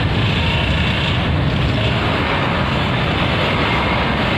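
Steady, loud rumble and hiss of bus engines and wind, with no distinct pitch or change.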